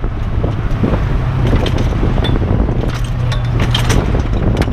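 A vehicle driving on a road: a steady low engine and tyre rumble with a constant hum, some wind, and scattered light clicks and rattles.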